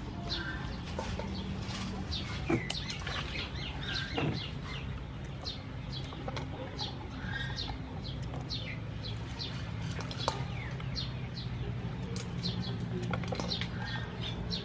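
Small birds chirping over and over, quick high calls, with a few sharp snips of scissors cutting young green peppercorn stems. A steady low hum runs underneath.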